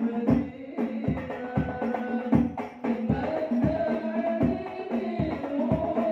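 Hadroh: male voices singing an Islamic devotional song into microphones, with frame drums (rebana) beating a steady rhythm.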